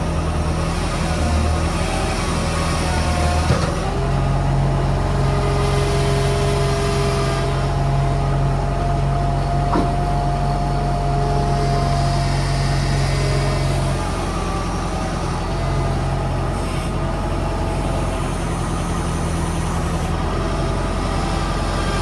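Engine idling steadily, its note shifting slightly about four seconds in and again around fourteen seconds.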